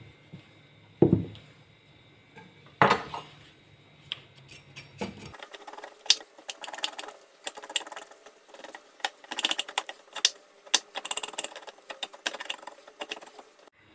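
Kitchen knife scraping and cutting the skin off a piece of fresh ginger root on a wooden cutting board: a quick run of short scrapes and clicks from about five seconds in, after two single knocks in the first few seconds.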